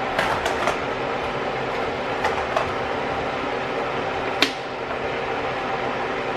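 Pan on the stove hissing steadily as butter melts and heats, with a few light clicks and one sharper clack about four seconds in.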